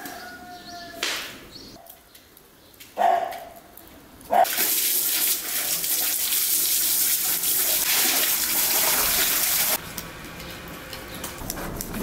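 A stream of water pouring and splashing onto a whole raw fish in an enamel basin, starting abruptly about four seconds in and cutting off near ten seconds. A few brief sounds come before it.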